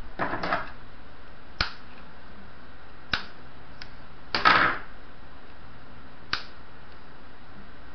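Handling noise of yarn, crochet hook and scissors on a tabletop: a few sharp clicks and two short rustles, the loudest a rustle about four and a half seconds in. A single crisp click about six seconds in is the scissors snipping the yarn end. A steady hiss runs underneath.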